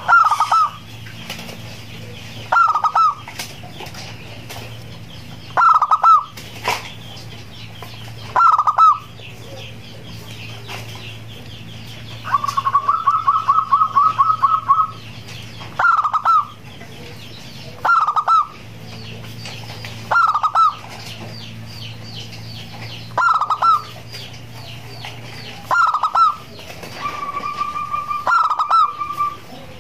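Zebra dove (perkutut) cooing: short phrases repeated about every two to three seconds, with a fast run of about ten notes around the middle and a longer held note near the end.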